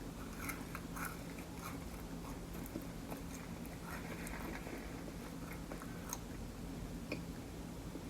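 Close-miked chewing of McDonald's food: soft, scattered mouth clicks and smacks of eating, over a faint steady hum.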